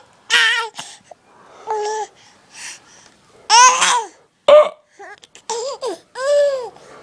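A baby babbling and squealing in short, high calls whose pitch arches up and down, broken by a few short, sharp hiccups.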